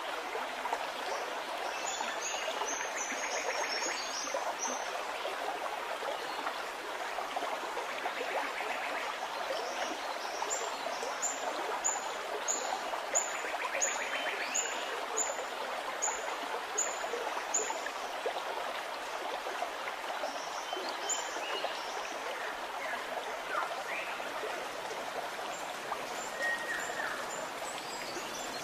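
A steady rush of noise like running water, with a bird repeating a short high chirp in two runs, the second a string of about a dozen chirps at under two a second.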